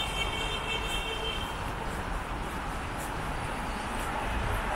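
Steady hiss of a wet city street, rain and traffic on wet road. A high beeping tone sounds over it for the first second and a half.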